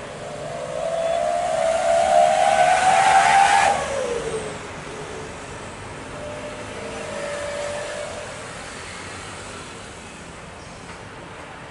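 An engine passing close by, its pitch climbing for a few seconds and then dropping sharply as it goes past, about four seconds in. A fainter, steadier engine tone follows, over a steady distant rumble.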